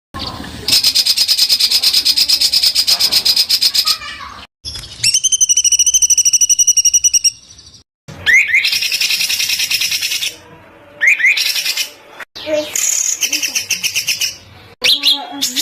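Small songbirds singing: a series of separate phrases of very fast, rapidly repeated notes and trills, some with upward-sliding notes, broken by abrupt gaps between phrases.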